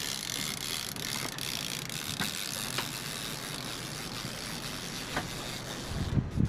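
Fishing reel being cranked as a fish is reeled in, a steady whirring with a few faint ticks, and a few low thumps near the end.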